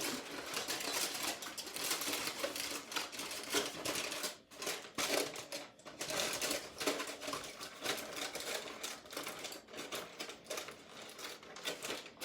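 Aluminum foil crinkling and crackling as it is pressed and folded down over a cup and tucked under a paper plate, a continuous run of small crackles.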